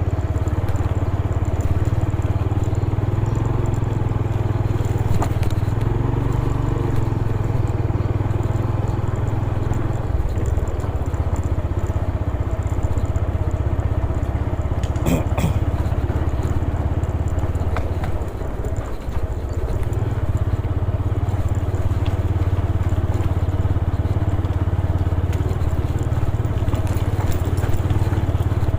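Motorcycle engine running steadily under way, easing off briefly about two-thirds of the way through, with one short sharp sound around the middle.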